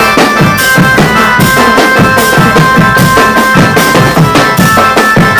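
Loud music of quick drum beats under a high-pitched instrument holding long, steady notes, as played for a costumed Garuda bird-dance troupe. It cuts off suddenly just after the end.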